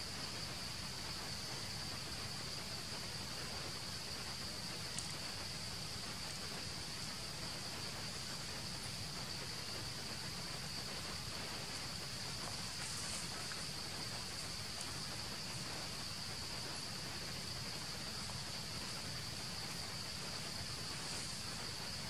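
Steady, unbroken high-pitched drone of an insect chorus over a constant hiss, with a few faint clicks.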